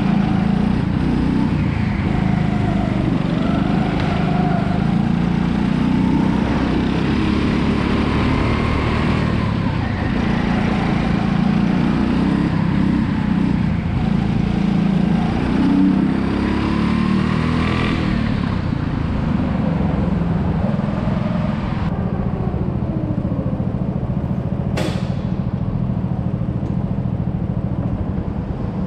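Go-kart engine heard from onboard, running hard with its pitch rising and falling through the corners. About two-thirds in it drops back as the kart slows into the pits, and a few seconds later there is a brief sharp high-pitched sweep.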